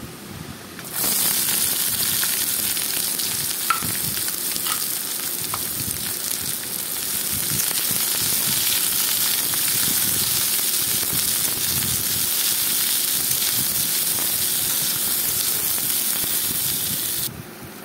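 Chopped garlic and onions frying in hot mustard oil in a karahi: a loud, steady sizzle, with the spatula stirring through it. The sizzle starts suddenly about a second in and cuts off near the end.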